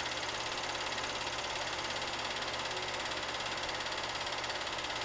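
8mm film projector running: a steady mechanical whir with a fast, even flutter, over hiss and a low hum.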